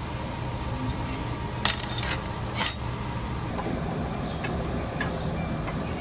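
Two sharp metallic clinks about a second apart, metal tools striking metal, with a few faint ticks afterwards, over a steady low hum.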